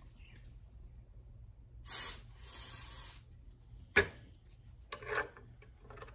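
Aerosol cleaner sprayed onto a paper towel in two bursts about two seconds in, a short loud one and then a longer, softer one. A sharp knock follows as the metal can is set down on the stringing machine's tray, then some rustling.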